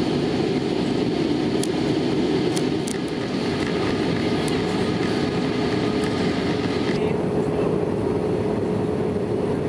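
Airbus A320-family airliner cabin noise during descent: a steady rumble of engines and rushing air with a constant hum. The higher hiss drops away suddenly about seven seconds in.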